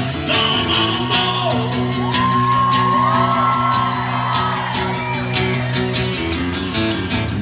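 Live rock band playing an instrumental break: electric guitar holding long, bending lead notes over a steady bed of drums and bass.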